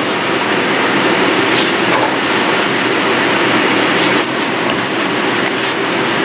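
Steady roar of a coal forge's fires under forced air from the blower, with a few faint metallic clinks of tongs and tools being moved in the fire.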